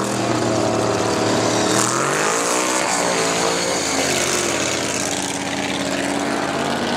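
Drag racing car's engine at high revs launching off the line, its note sweeping sharply up in pitch about two seconds in, then settling to a steadier, lower engine tone as it goes away down the strip.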